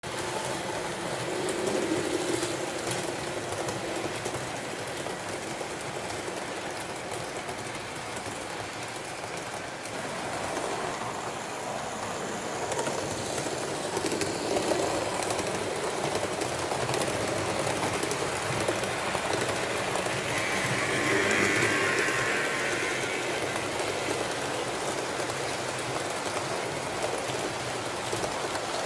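HO scale model trains running on a layout: a steady rolling rattle of wheels on the rails with the hum of the locomotive motors. It gets a little louder for a couple of seconds about two-thirds of the way through.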